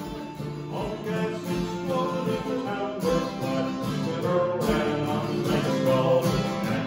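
Two acoustic guitars strumming a tune.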